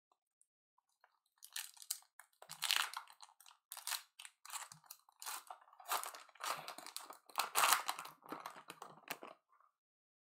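Foil wrapper of a pack of baseball trading cards being torn open and crinkled by hand. It makes irregular crackling rustles that start about a second in and stop near the end.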